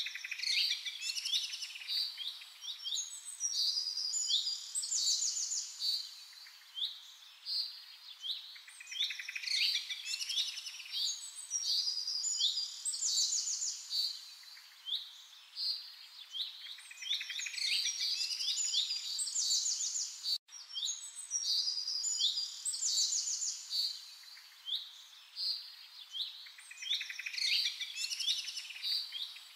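A chorus of songbirds singing together, a dense and continuous run of high chirps and rapid trills. The sound drops out for an instant about two-thirds of the way through.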